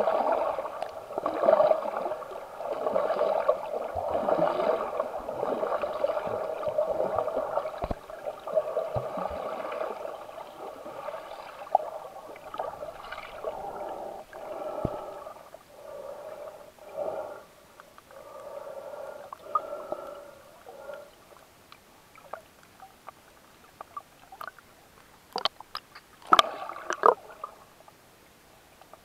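Water gurgling and swishing, heard from underwater, in uneven surges, growing much quieter after about twenty seconds; a few sharp clicks near the end.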